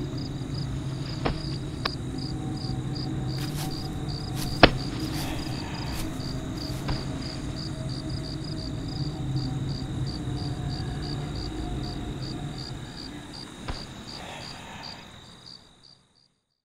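Crickets chirping in an even, pulsing rhythm over a low background rumble, with a single sharp click about four and a half seconds in. The sound fades out near the end.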